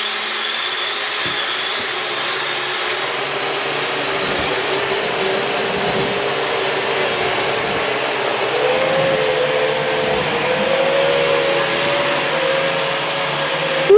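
Toy quadcopter's small electric motors and propellers whirring steadily in flight, the pitch stepping up a little past halfway through.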